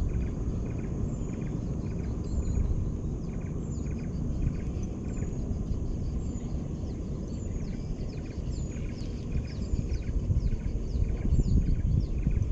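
Spinning reel cranked steadily as a lure is retrieved, with short regular ticks, over a low steady rumble. A bird calls over and over in short falling notes.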